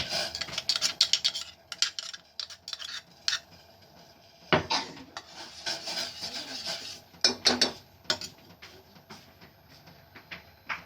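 Spoon scraping and clinking against a dish and pan as pounded turmeric paste is scraped into a pan of heating water: irregular scrapes and clicks, densest at the start, with a sharp knock about halfway and another cluster a little later.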